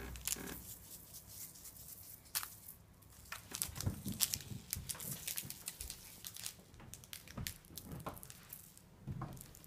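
Irregular soft crinkling, rustling and light taps of paper and a small glitter packet being handled on a tabletop, with glitter sprinkled and pressed onto the sheet.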